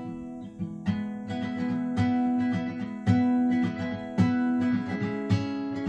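Acoustic guitar strumming chords, about one strum a second, with no singing.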